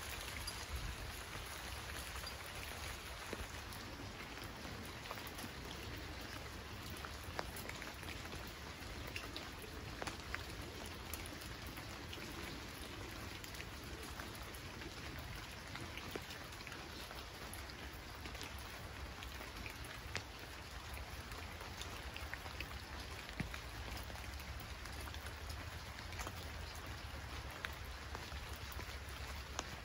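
Steady rain: an even, dense hiss with sharp ticks of single drops scattered through it.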